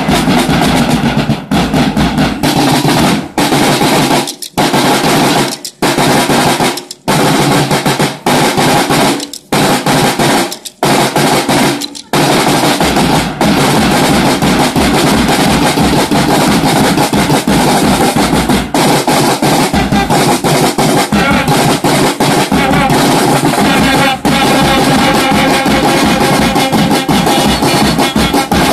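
School band of bass drums and side drums playing beats and rolls, with brass horns. For about the first twelve seconds the drumming comes in short phrases broken by brief silences. After that the band plays on without a break until it stops at the end.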